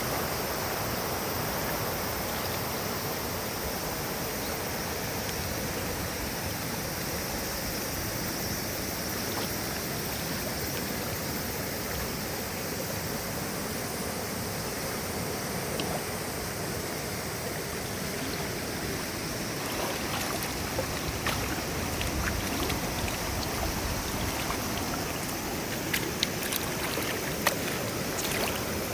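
River water rushing steadily over its bed, a clear mountain river's continuous flow, with a few sharp clicks or taps in the last third.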